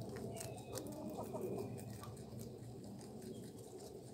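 Young white rabbits munching fresh spinach leaves and stems: many faint, crisp chewing clicks over a steady low background sound.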